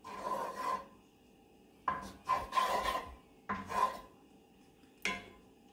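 Wooden spoon scraping and rubbing half-melted butter around a cast iron skillet, in about five separate strokes.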